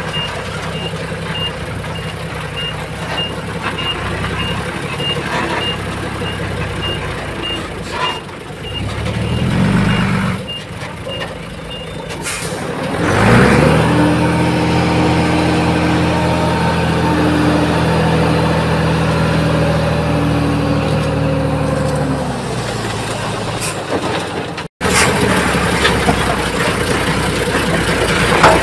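Diesel dump truck reversing, its backup alarm beeping about twice a second over the engine. The beeping stops about halfway through and, after a short hiss, the engine revs up, holds high revs steadily for several seconds, then drops back.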